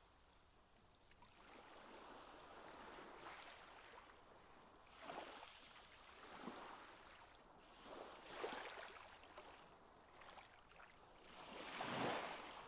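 Faint water lapping and sloshing in a concrete pool, coming in soft, irregular swells every second or two, the strongest near the end.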